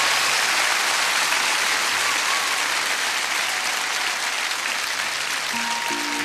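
Crowd of guests applauding, a steady clatter of many hands clapping. Near the end a few soft held notes of music come in.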